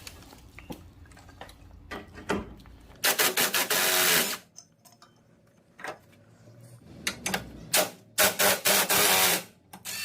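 A tool undoing a bolt on the horn bracket: two loud bursts of rapid mechanical clicking, each about a second long, roughly three and eight seconds in. Small metal knocks come in between.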